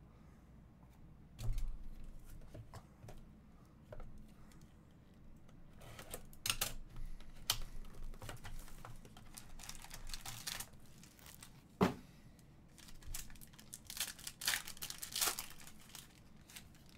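Hands unpacking a trading-card box: plastic wrapper crinkling and tearing in short bursts, with small clicks and taps of cards and cardboard. There is a sharp click about twelve seconds in.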